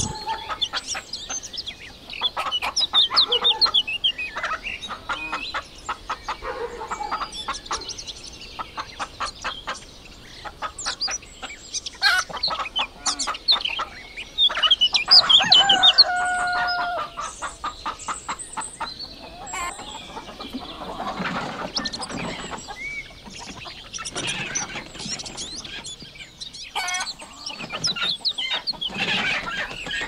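A flock of chickens clucking, with many birds calling over one another in quick short notes. About halfway through, a rooster crows once, in one long call.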